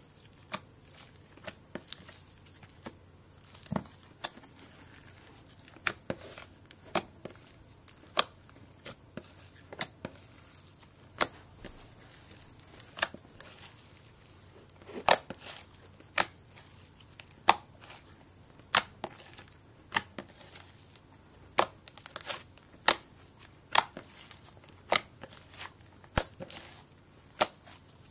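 Fluffy white slime being stretched, pulled apart and squeezed by hand, giving irregular sharp pops and crackles with a tearing sound, about one a second and louder in the second half.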